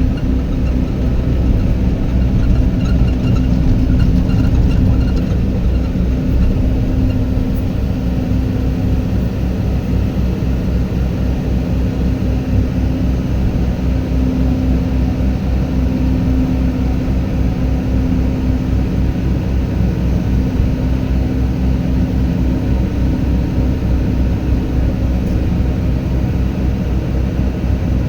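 Excavator's diesel engine running steadily at a constant speed, a low rumble with a steady hum on top.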